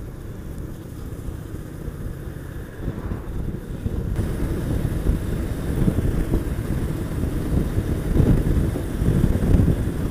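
Wind buffeting the microphone over the running of a Honda VT750S V-twin motorcycle on the move, a low rumble that grows louder partway through as the bike gathers speed on the open road.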